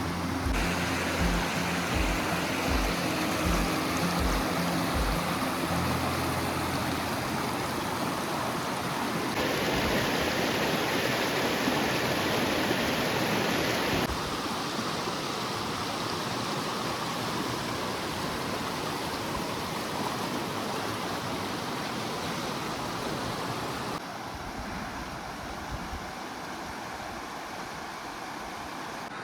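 River water rushing over rocks, a steady noise that shifts in loudness a few times. Background music with a low, regular beat plays under it for the first five seconds or so, then fades out.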